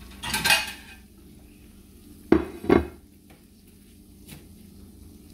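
A short clatter of dishes, then two sharp knocks about half a second apart as a plate is set down on the counter. A faint steady sizzle from the frying pans runs underneath.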